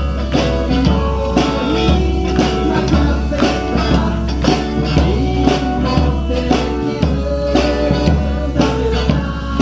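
Live folk band playing a song: guitar and a steady beat with tambourine-like percussion, and singing.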